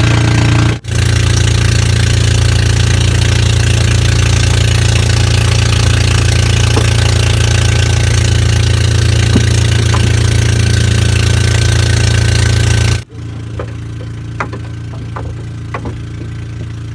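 Small outrigger pumpboat's engine running steadily and loudly. About 13 seconds in it drops to a quieter level, with a few light knocks over it.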